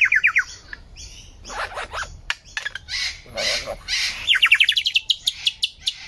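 Superb lyrebird singing: a quick run of whistled notes falling in pitch, then harsh noisy calls, then a fast series of notes climbing steadily higher about two-thirds through, ending in a few spaced sharp notes.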